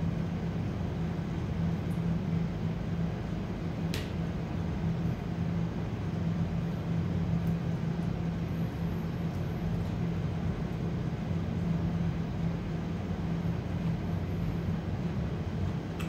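A steady low mechanical hum with an even hiss, as of a running fan or appliance, and one sharp click about four seconds in.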